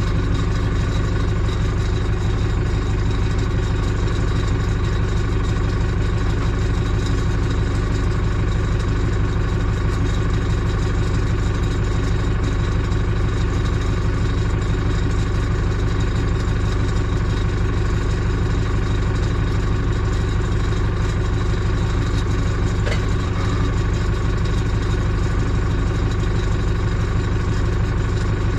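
Diesel engine of the loader holding the tractor's engine up, idling steadily.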